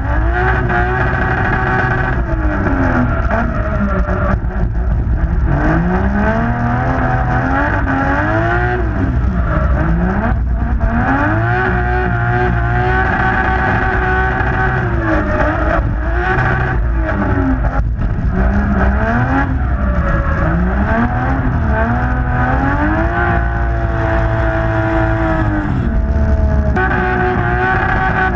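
A drift car's engine heard onboard, revving hard through a run of drifts: the pitch climbs, holds high for a few seconds while the car slides, then falls away between corners, over and over.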